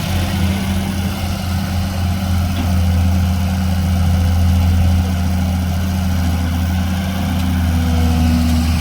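Sumitomo LS260 excavator's diesel engine running steadily with a deep, even hum, swelling slightly in the middle.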